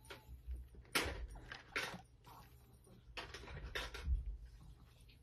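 A small clear plastic bag holding a chain, handled and crinkled in a few short rustles with some low handling bumps.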